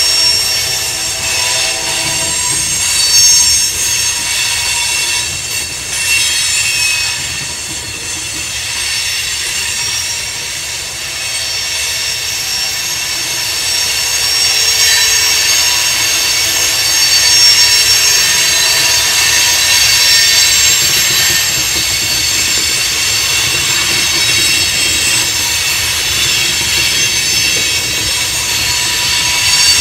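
Loaded rock train of hopper cars rolling past close by: steady rumble of steel wheels on rail with high-pitched wheel squeal, growing louder about halfway through. A horn-like chord of tones sounds in the background for the first two seconds.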